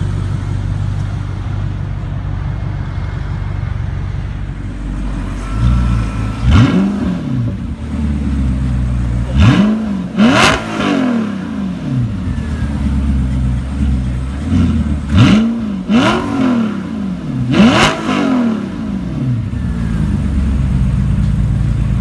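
Audi R8 with an Armytrix aftermarket exhaust idling, then blipped sharply about six times, each rev rising and falling quickly, before settling back to idle.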